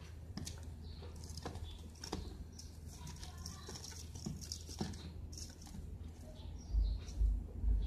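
Outdoor ambience with small birds chirping now and then and scattered light clicks over a low steady hum. Near the end come a few loud, low rumbling thumps.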